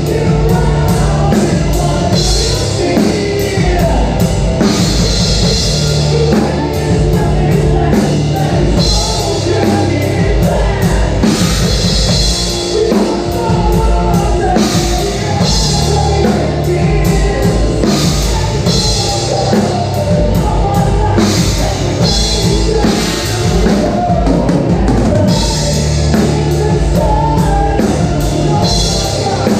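Loud rock music with a full drum kit driving a steady beat, cymbals, and a sung or guitar melody over it.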